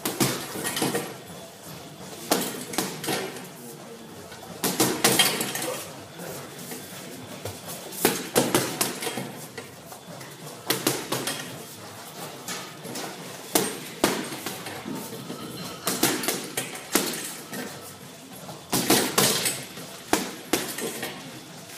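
Boxing gloves striking a heavy punching bag in quick combinations, a burst of several hard blows every two to three seconds, with metallic clinking from the bag's hanging hardware at each burst.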